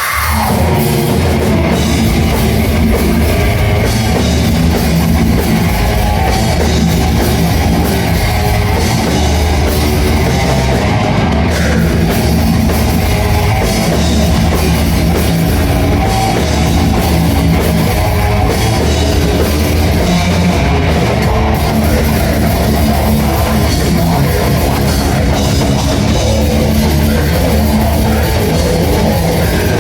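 Loud rock music with a drum kit and guitar, dense and unbroken.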